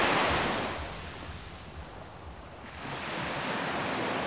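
Ocean surf: two waves washing in, the first ebbing away over the first second or so and the second swelling in near the end.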